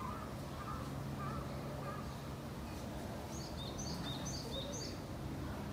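Steady low background hum, with a small bird's quick run of short, high chirps about three to five seconds in.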